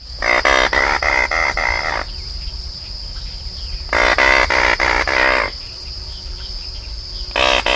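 Anhinga calling: rapid rattling, clicking calls in bursts of about a second and a half, twice, with a third starting near the end.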